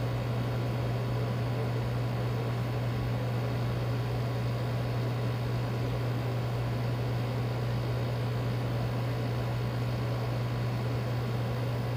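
A steady low machine hum under a constant hiss, with no change in pitch or level.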